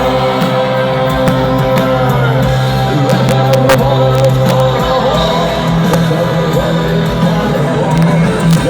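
Rock band playing live in a large concert arena, with singing over sustained chords.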